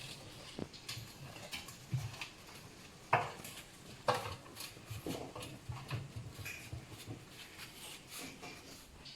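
Raccoon kits moving and scrabbling about: an irregular patter of light taps, clicks and knocks, with two louder sharp sounds about three and four seconds in.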